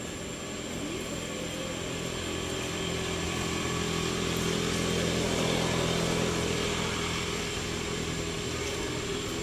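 A motor vehicle engine running steadily, with a slight rise in pitch about two seconds in. It grows louder toward the middle and then eases off a little.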